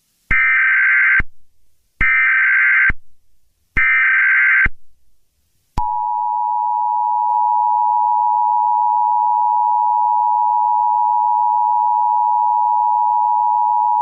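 Emergency Alert System SAME header: three one-second bursts of data tones, evenly spaced, then the EAS attention signal, two steady tones sounding together (853 and 960 Hz), held for about eight seconds before cutting off.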